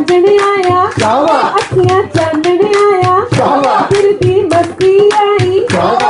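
Women singing a Punjabi wedding folk song into a microphone, accompanied by harmonium, with the guests' steady hand-clapping keeping time at about three to four claps a second.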